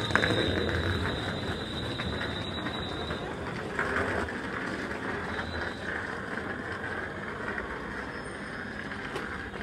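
London Midland Class 350 Desiro electric train drawing into the platform and slowing to a stand. A high steady whine stops about three seconds in, and the running noise gradually dies away.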